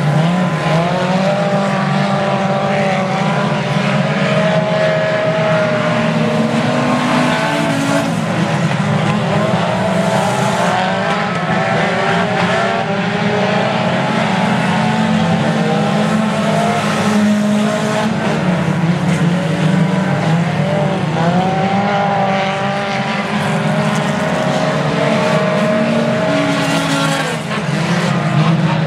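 A field of four-cylinder stock cars racing together, many small engines running hard at once. Their pitches rise and fall, overlapping, as the cars accelerate, lift and pass.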